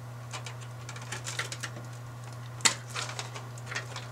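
Small plastic clicks and rattles of cable connectors being pulled from a PC motherboard's front-panel USB and audio headers, with one sharper click a little past the middle, over a steady low hum.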